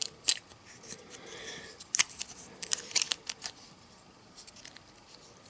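Small plastic clicks and taps as the fuel tank of a model locomotive is pressed back onto its chassis by hand. The sharp ticks come irregularly and are thickest and loudest about two to three seconds in.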